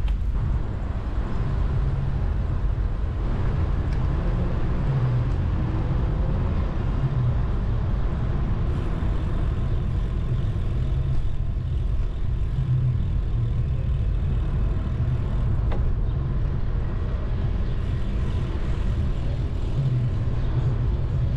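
Steady low rumble of wind and tyres on a camera riding along on a bicycle, with light city road traffic underneath.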